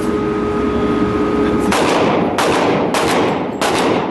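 A string of about five gunshots fired at an uneven pace, roughly half a second apart, starting a little under two seconds in. Before the first shot there is a steady hum.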